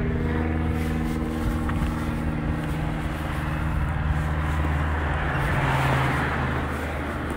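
A motor vehicle's engine running steadily with a low hum, and the noise of a car passing that swells to a peak about six seconds in, then fades.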